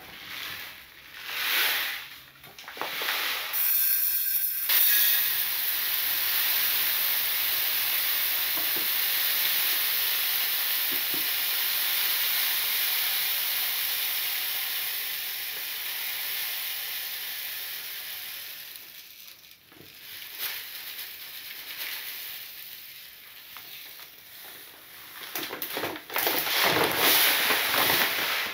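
Uncooked brown rice pouring from a paper bag into a glass jar, a steady grainy hiss that starts about five seconds in and fades after about a quarter of a minute. The paper bag rustles and crackles at the start and again near the end.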